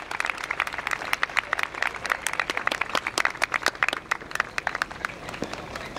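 Audience applauding: many hands clapping in a dense, irregular patter.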